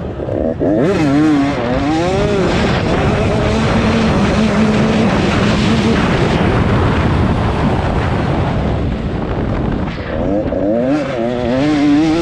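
Dirt bike engines racing, their pitch sweeping up and down with revs and gear changes near the start and again near the end, with a denser stretch of engine noise in the middle.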